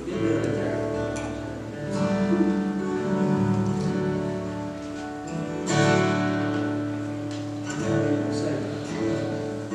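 Two acoustic guitars playing together, chords struck every couple of seconds and left to ring.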